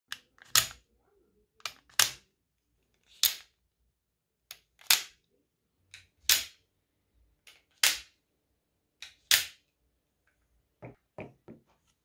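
Homemade wooden out-the-front automatic knife firing its blade in and out: seven sharp clacks about a second and a half apart, each with a fainter click just before it. Near the end come four lighter, duller knocks.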